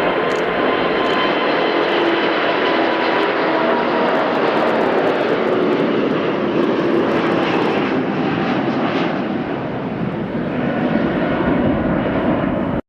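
Airbus A380's four Rolls-Royce Trent 900 turbofans running loud during its departure: a steady rushing noise with whining tones through it. The sound cuts off abruptly near the end.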